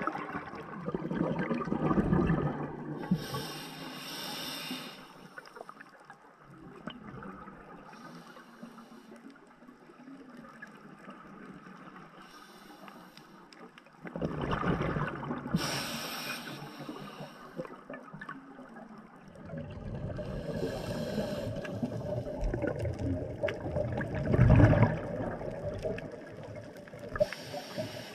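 Scuba diver breathing through a regulator underwater: a short hiss on each inhale, then a low rumble of exhaled bubbles, several breaths a few seconds apart.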